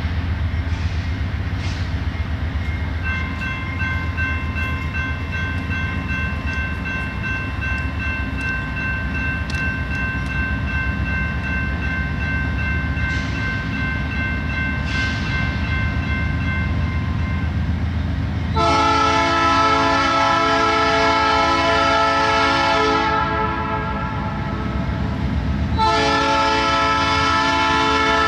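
Approaching diesel freight train's multi-chime air horn blowing for a grade crossing: one long blast beginning about two-thirds of the way in, then a second blast starting near the end, over the steady low rumble of the locomotive. Before the horn, a steady high tone sounds for about fourteen seconds.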